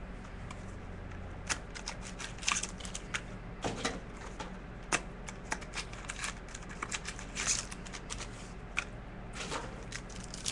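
Trading cards and their packaging being handled: irregular crinkles, rustles and sharp little clicks as packs are opened and cards are slid through.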